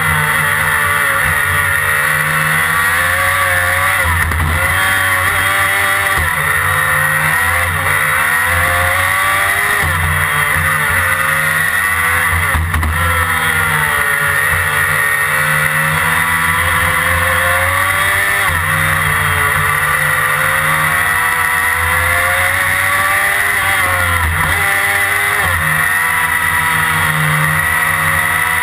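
Formula Predator's 600cc single-seater racing car's engine heard onboard at high revs, its pitch climbing and then dropping again and again as it is driven hard through corners, with several sudden drops in revs.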